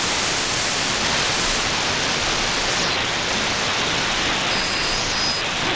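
Steady hiss and static from a shortwave software-defined radio receiver tuned in the 41-meter band, with no clear voice coming through. A faint high whistle, typical of a heterodyne, sounds briefly near the end.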